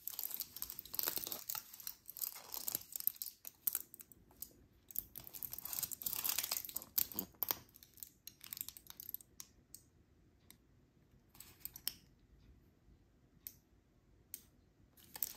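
Packaging crinkling and tearing as it is handled and opened: dense rustling bursts through the first half, then scattered crackles, with one more burst near the end.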